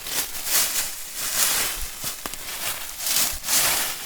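Dry forest leaf litter rustling in repeated bursts about once a second, stirred by someone moving through it.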